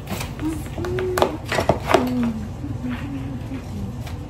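A spatula stirring and scraping wet snow in a plastic mixing bowl, with several sharp knocks against the bowl about a second in.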